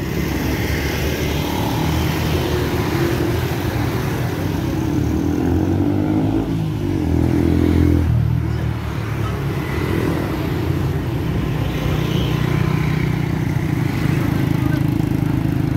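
Motorcycle and scooter engines on a busy street, one rising in pitch as it speeds up about five to eight seconds in, over a steady low rumble of traffic.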